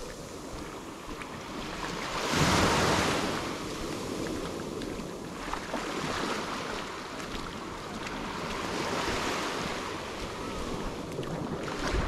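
Ocean waves washing onto a sandy beach, one louder wave breaking about two seconds in, with wind on the microphone.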